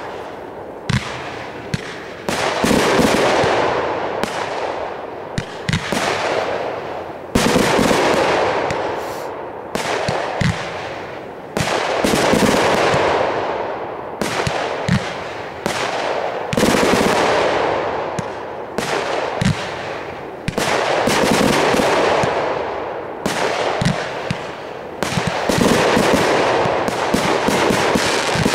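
Aerial fireworks bursting one after another: each sharp bang is followed by a fading crackle, with a new burst every second or two.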